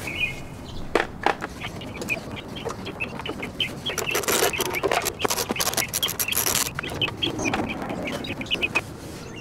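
Hand tool tightening the nuts that hold the plastic engine cover on a Kohler Courage lawn-mower engine: a run of short metallic clicks, quickest from about four to six and a half seconds in. Birds chirp in the background.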